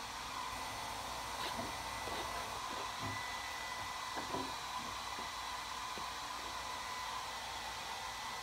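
Steady whirring hiss of a running fan, with a faint, even high whine.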